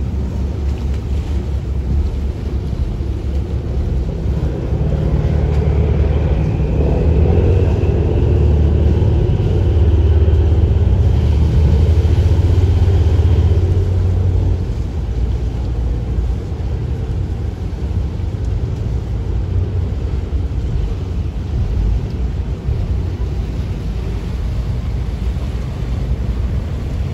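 Low, steady engine rumble of a ferry. It grows louder for about ten seconds starting a few seconds in, with a faint rising whine over it.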